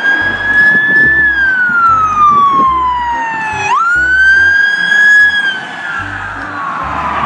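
Electronic police-siren wail from a toy police car: a tone that jumps up, then slides slowly down, restarting once about halfway through.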